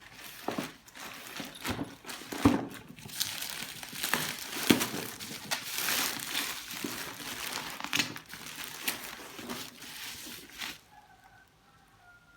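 Packaging being unwrapped and handled, crinkling and rustling with several sharp knocks. It stops about eleven seconds in.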